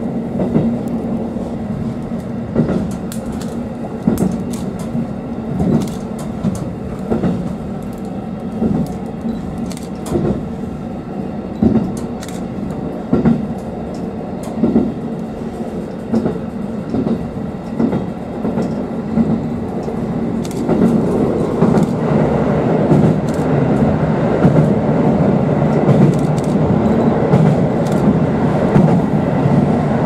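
Inside a KiHa 40 diesel railcar under way: a steady diesel engine drone with the wheels clicking over rail joints about every one and a half seconds. After about twenty seconds the running gets louder.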